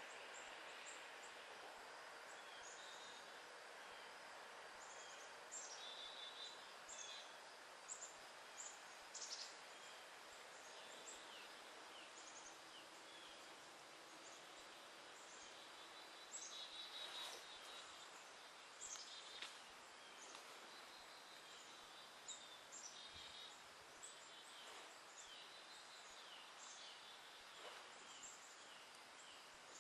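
Faint outdoor woodland ambience: a steady low hiss with scattered short, high chirps and ticks, coming in small clusters.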